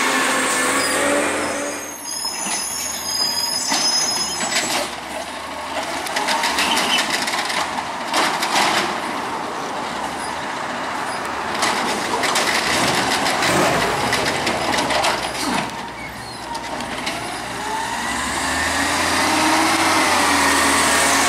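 Natural-gas Autocar ACX garbage truck with an Amrep automated side-loader: the engine pulls it up with a high squeal as it stops, the arm's hydraulics run with repeated knocks and clatter as a cart is lifted and emptied into the hopper, and near the end the engine revs up as the truck drives off.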